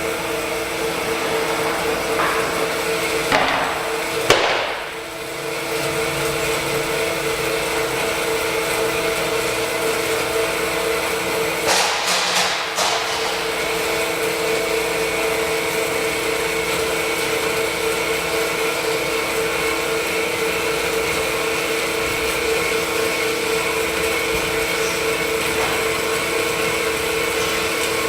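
Bomar 320-250DG horizontal metal-cutting band saw running, its 2-horsepower two-speed motor and blade giving a loud, steady hum. Brief sharp clatters come about three to four seconds in and again about twelve seconds in.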